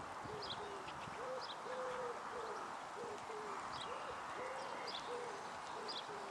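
A pigeon cooing, a run of short low notes, with small birds chirping high and faint behind it.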